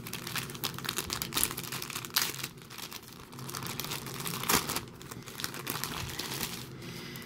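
Clear plastic bag crinkling and rustling in irregular crackles as hands handle it.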